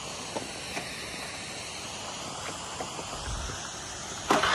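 Quiet, steady outdoor hiss with a few faint clicks. About four seconds in, a motor scooter's engine comes in suddenly, loud and close.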